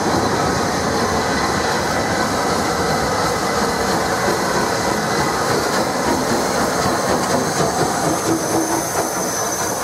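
Rebuilt Bulleid West Country class steam locomotive 34046 'Braunton' (running as 34052 'Lord Dowding') rolling past close by along the platform, its wheels and running gear rattling over the track in a steady, loud noise.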